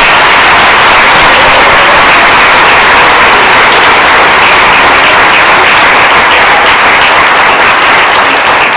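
Audience applauding loudly and steadily in a hall, easing off slightly near the end.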